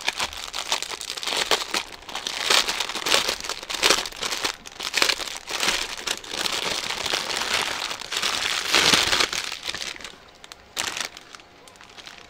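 Plastic packaging crinkling: the outer bag and the small plastic packets of diamond painting drills handled and unwrapped, in dense crackling bursts that ease to occasional crinkles about ten seconds in.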